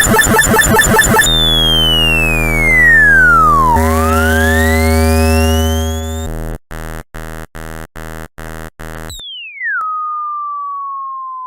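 Synthesized electronic tones in a run of glitches: a pulsing buzz, then a pitch that sweeps down and back up, then a buzzy tone chopped on and off about seven times, and finally a tone that drops steeply and then slides slowly lower.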